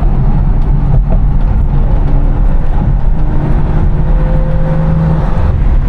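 BMW 340i's turbocharged straight-six, tuned to stage 2+ with a valved exhaust, running at a steady cruise as a loud, constant drone. A held engine tone in the second half eases off shortly before the end.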